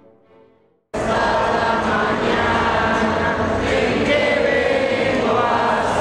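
Instrumental background music fades almost to silence, then about a second in there is an abrupt cut to a choir singing a church hymn, recorded live.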